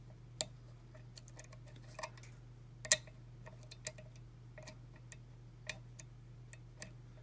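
Irregular small clicks of a lock pick and tension wrench working the pins of a pin-tumbler lock, one sharper click about three seconds in, over a low steady hum.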